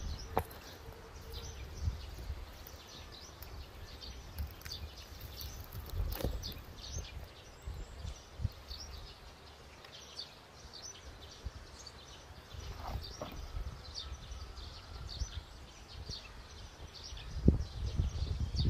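Outdoor ambience of scattered high, short chirps from small birds, with occasional low thumps and rustles from a person moving over dry ground and handling a camera tripod. The loudest thump comes near the end.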